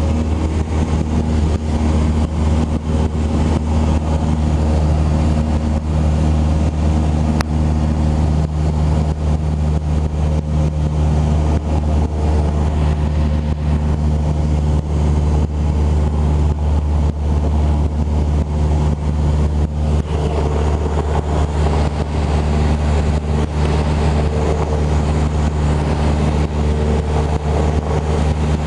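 Cessna 172 Skyhawk's single piston engine and propeller running steadily in flight, heard from inside the cabin: an even, low drone with several steady tones.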